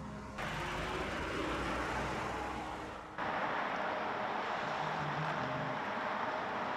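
Steady outdoor road-traffic noise, a continuous rushing hiss of vehicles with a faint engine hum underneath. The background changes abruptly about three seconds in.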